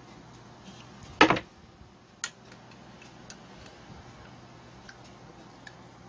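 Small metal clicks and taps as the ignition coil's mounting bolts are loosened on a brush cutter engine, with a sharp clack about a second in and a lighter one about a second later.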